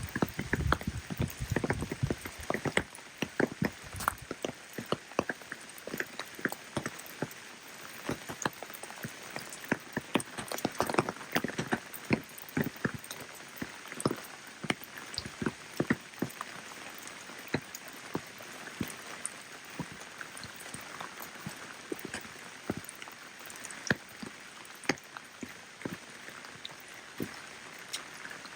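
Rain falling: many sharp, irregular drop taps over a steady hiss, with a low rumble for the first few seconds.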